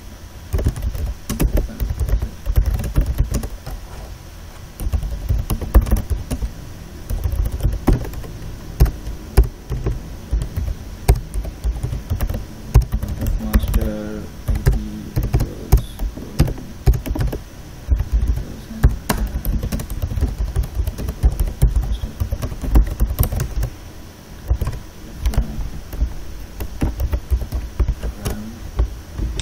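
Typing on a computer keyboard: a run of irregular key clicks with dull thuds under them, broken by a couple of short pauses.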